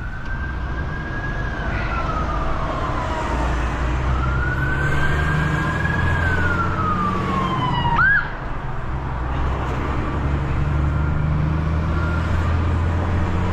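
Emergency-vehicle siren wailing in two slow rise-and-fall cycles, then a short upward chirp about eight seconds in, over the steady low drone of the heavy recovery truck's engine.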